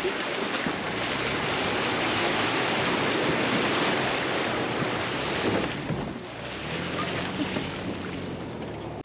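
Toyota Prado 4WD driving through a shallow river crossing: water rushing and splashing against the body and wheels, with the engine running underneath. The splashing is loudest in the middle and eases near the end as the vehicle climbs out of the water.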